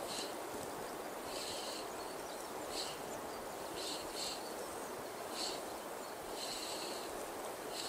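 Steady rush of river water running over rapids, with a small bird giving short, high chirping calls again and again at irregular intervals.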